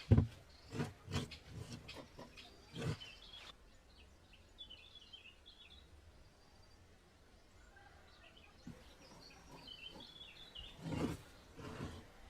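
Birds chirping faintly, with a few sharp knocks and thuds in the first few seconds and again about eleven seconds in.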